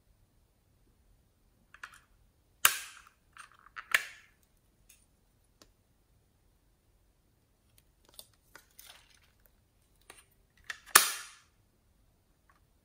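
Hard plastic snapping and clicking as a plastic toy case is opened and closed and handled. There are two loud sharp snaps, about three seconds in and near the end, with a few smaller clicks and taps between them.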